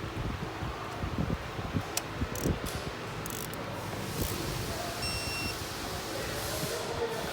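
Scattered light clicks and knocks, then a single short electronic beep about five seconds in, lasting about half a second.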